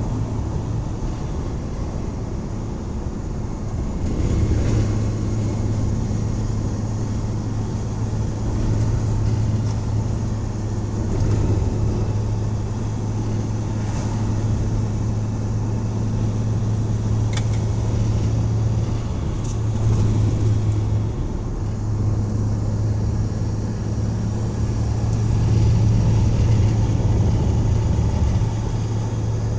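1984 Dodge van's engine running under load while driving, a steady low drone with road noise. The drone grows stronger about four seconds in and dips briefly about two-thirds of the way through. The owner is listening for a misfire at wide-open throttle.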